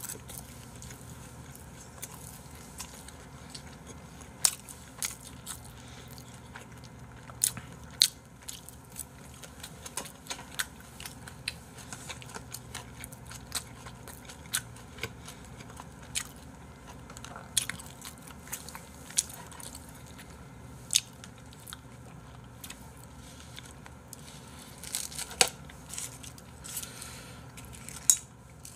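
People eating kimchi-jjim with chopsticks close to a microphone: chewing, with scattered sharp clicks of chopsticks against a bowl and a plastic container.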